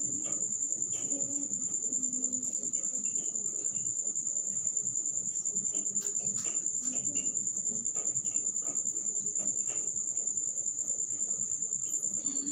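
A cricket chirping in a continuous, high, rapidly pulsing trill. A faint low murmur and a few soft knocks lie underneath.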